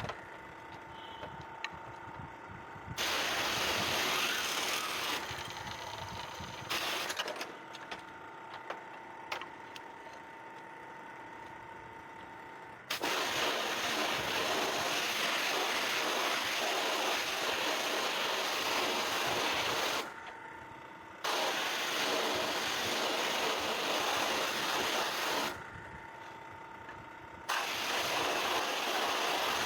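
Water jet spraying onto the indoor fan of a split-unit air conditioner as it is flushed clean. It comes in several long hissing spells, the longest about seven seconds, and a faint steady tone carries on in the pauses.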